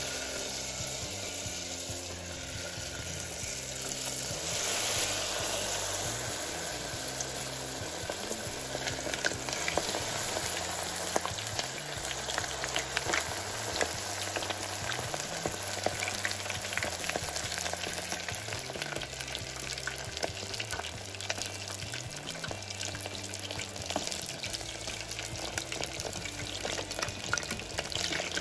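Wonton-wrapped money bag parcels deep-frying in a pot of hot oil: a steady sizzle with dense crackling pops that thicken as the parcels fry. Soft background music plays underneath.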